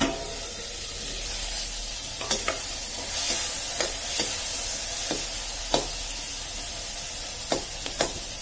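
Tomatoes and garlic frying in hot oil in a kadhai over a wood fire: a steady sizzle, stirred with a metal spoon that scrapes and clinks against the pan about ten times at irregular intervals.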